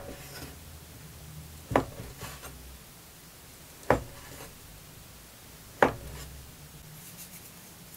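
Chef's knife slicing through a log of egg pasta dough and knocking on the wooden cutting board three times, about two seconds apart, with faint rubbing after each cut.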